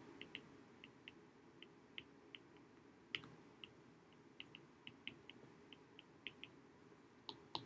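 Faint, irregular light ticks of a stylus tip on a tablet's glass screen during handwriting, over a low steady hiss.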